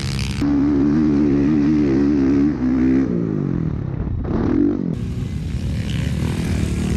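Dirt bike engines running and revving, the pitch wavering up and down, then falling away; a short rev rises and falls about four seconds in.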